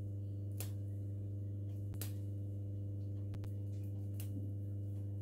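Steady low electrical hum with a stack of overtones above it, with a few faint ticks scattered through it.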